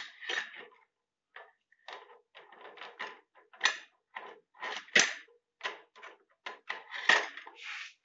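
Metal cutlery clinking and rattling as knives and forks are put into a dishwasher's plastic cutlery basket: an irregular run of clicks and clatters, the sharpest about five seconds in.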